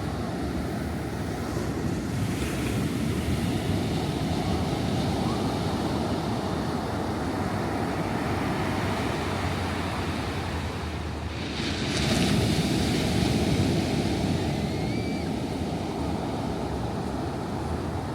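Ocean surf: a steady rush of waves washing on the shore, with one louder wave breaking about two-thirds of the way through.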